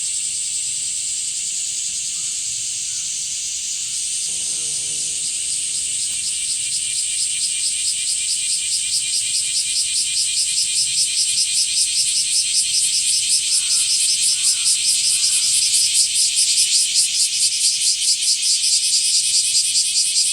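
A summer cicada chorus including blackish cicadas (aburazemi), a dense, loud, sizzling drone. From about six seconds in, a pulsing song of about four beats a second grows louder over it.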